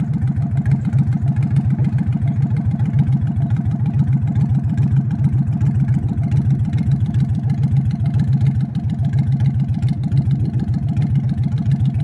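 An engine or motor running steadily with a low, even hum at a constant pitch.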